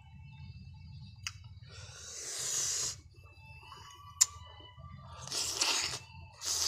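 A person eating sour fruit with chili salt: chewing, with two loud hissing breaths through the mouth. A metal spoon clicks twice against a ceramic bowl, the second click ringing briefly.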